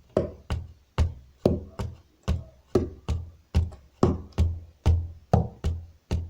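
Baião rhythm played by hand on a wooden tabletop: a steady pattern of about two and a half strikes a second, deep bass thumps alternating with higher, sharper slaps.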